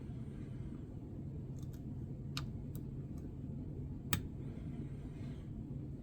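Lock-picking tools working in a Master Lock No. 570 padlock: a handful of small, sharp metallic clicks, the loudest about four seconds in, over a steady low hum.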